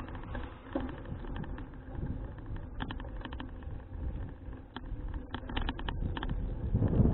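Bicycle riding noise on an action camera: a low rumble of tyres and wind on the microphone, with scattered light clicks and rattles from the bike.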